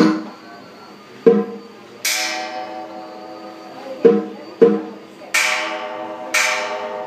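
A small handheld brass gong struck one blow at a time at a slow, uneven beat, each strike ringing a few clear tones that fade. Three louder, brighter crashing metal strikes ring on longer, one about two seconds in and two near the end.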